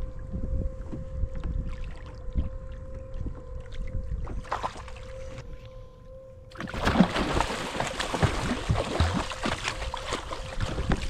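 Water sloshing and knocking around a kayak, then from about six and a half seconds in a hooked smooth hound thrashing at the surface beside the kayak, a loud burst of splashing.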